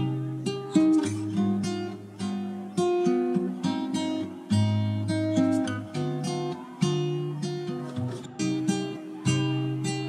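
Background music: acoustic guitar strumming and plucking chords.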